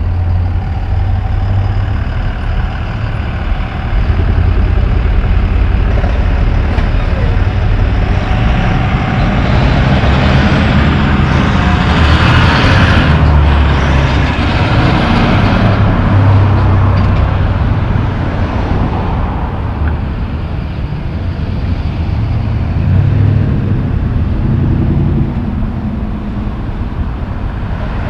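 Highway traffic passing: a semi-truck pulling a tanker trailer goes by close, its diesel engine and tyre noise swelling to the loudest point about halfway through, then fading under the steady rumble of other vehicles.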